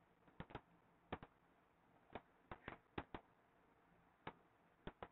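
About a dozen light, irregular clicks over near silence: a stylus tapping and ticking on a writing tablet while handwriting.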